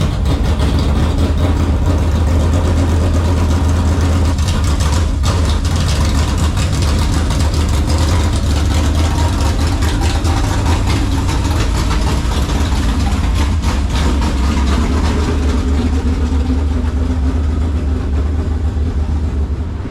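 A vehicle engine idling steadily, loud and low.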